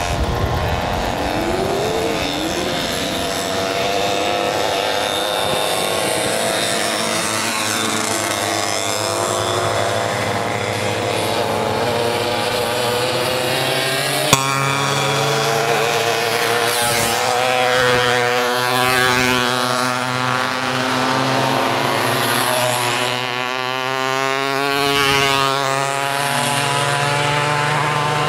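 Engines of small racing mopeds running at once, the pitch of one or more rising and falling as they pass, most clearly past the middle and near the end. A single sharp click comes about halfway through.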